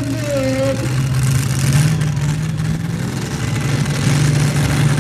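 The exposed engine of a 2WD pulling truck running steadily at a fast idle while hooked to the pulling sled. Its pitch steps up slightly about a second in.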